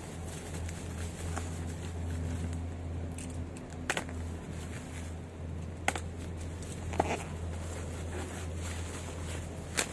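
Bubble-wrap packaging being unwrapped and its packing tape cut with a utility knife: plastic crinkling and rustling, with four sharp clicks spread through.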